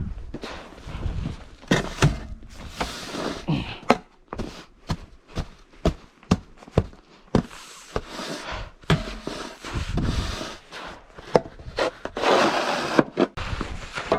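Snow shovel scraping through snow and knocking, in irregular strokes, with the loudest scrape near the end.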